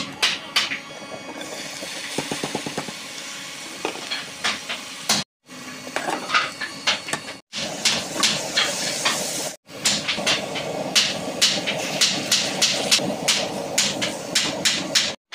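Sliced onions and tomatoes sizzling in oil in a frying pan on a gas burner, with a metal slotted spatula knocking and scraping against the pan over and over. Early on there is a steadier hiss of batter cooking on the hot pan, and the sound drops out briefly a few times.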